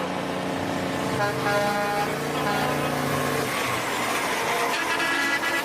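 Truck engine running, with horn toots sounding over it at times.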